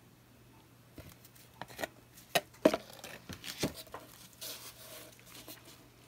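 Handling noises of acrylic pouring: a plastic pour cup set down and a small canvas moved by gloved hands on a hard work surface, giving a string of light knocks and taps with a sharper click about two and a half seconds in, then soft rubbing.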